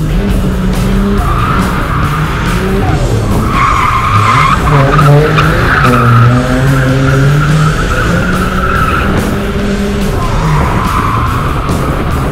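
Ford AU Falcon's turbocharged straight-six held high in second gear while the rear tyres squeal through sustained drifts, heard from inside the cabin. The engine note dips briefly several times between slides, and the tyre squeal is loudest in the middle of the stretch.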